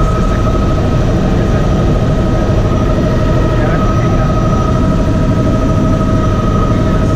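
Cabin noise of a Bell 206B JetRanger III helicopter in cruise flight: its Allison 250 turboshaft engine and rotor system give a steady low rumble with a constant high whine on top.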